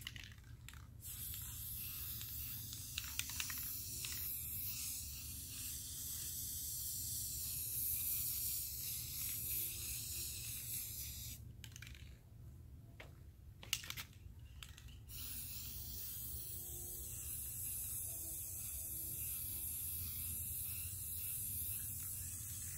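Aerosol spray paint can hissing in two long sprays of red paint onto old skis, with a pause of a few seconds about halfway through. A low steady rumble runs underneath.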